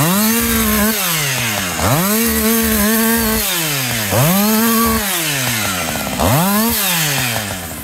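Chainsaw cutting into the base of a dead birch trunk, revved up four times. Each time it rises sharply to full speed, holds for about a second, then sinks back as it bogs in the cut.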